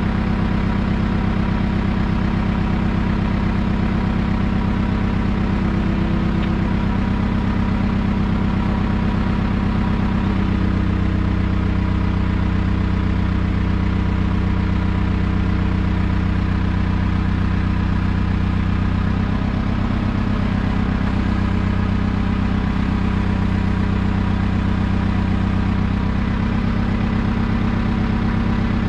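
An engine idling steadily, its note shifting about ten seconds in and again around twenty seconds in.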